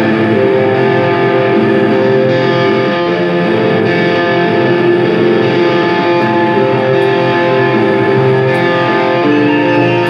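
Black metal band playing live: distorted electric guitars and bass holding long chords that change every second or two.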